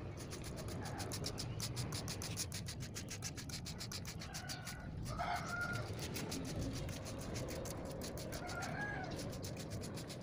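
Hand trigger spray bottle being pumped rapidly, a quick run of short hissing squirts of fungicide spray onto grape leaves. A few chicken clucks sound in the background.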